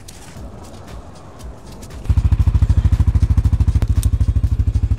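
ATV engine starting about two seconds in and then idling with a fast, even low pulsing.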